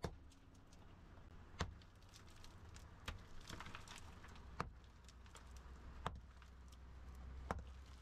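Pickaxe striking a crumbly rock and earth bank, six blows evenly spaced about a second and a half apart, with lighter clicks between them.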